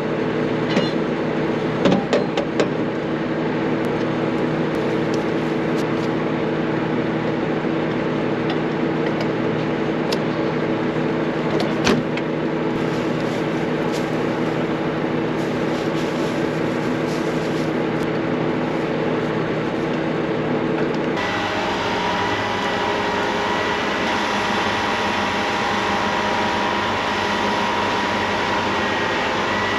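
An engine running steadily with a droning hum, with a few sharp knocks in the first seconds and one more near the middle. About two-thirds of the way through, the sound changes abruptly to a different steady engine drone with a thin, high, steady whine over it.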